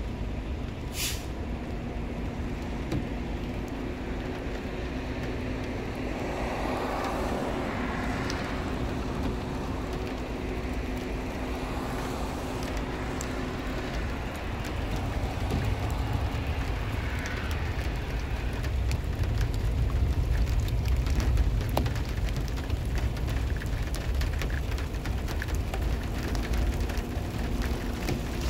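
Low rumble of an approaching thunderstorm, swelling about halfway through and easing near the end, with a steady low hum through much of it.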